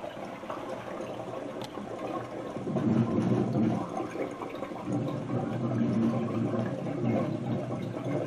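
CO2 gurgling as it bubbles up through hard cider inside a stainless steel corny keg, the gas forced in down the dip tube to carbonate the cider. The gurgling gets louder about two and a half seconds in and stays that way.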